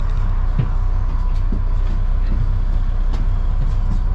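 Dennis Trident double-decker bus running, its engine a steady low drone heard from inside the upper deck, with scattered light rattles and clicks from the body.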